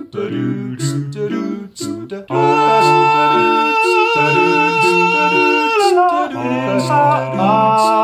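Multitracked a cappella singing by one man: a sung bass line moving under stacked hummed and sung harmonies. About two seconds in, the voices hold a long high chord that slides down near the six-second mark, then the parts move on.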